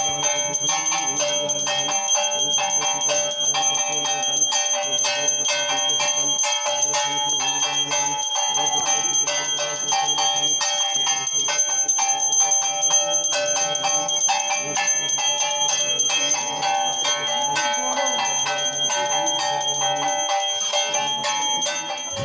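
A puja hand bell rung rapidly and without pause during the lamp-waving arati, its ringing tones held throughout, with a lower sound pulsing in short spells underneath.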